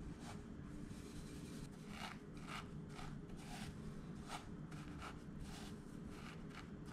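Dry panko breadcrumbs crunching and rustling in a ceramic bowl as hands press a fish fillet into them to bread it: a faint, irregular series of short crisp scrunches over a low steady hum.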